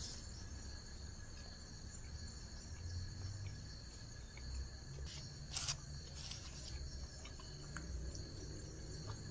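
Night insects trill steadily in two high, even bands, over a low rumble. A few short crackles come through, one as a hand picks at the paper-wrapped pork near the start.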